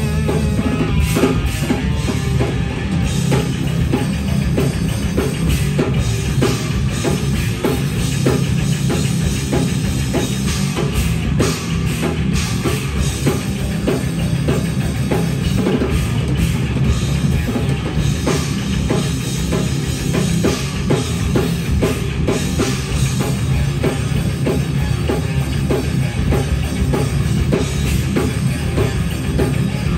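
Live heavy metal band playing: distorted electric guitars, one through a 5150 amp head, over a full drum kit with fast, steady drumming and bass-drum hits.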